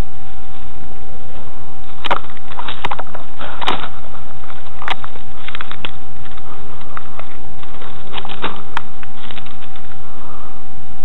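Scattered sharp clicks and knocks, some in quick clusters about two to five seconds in and again near the end, over a steady high-pitched hum.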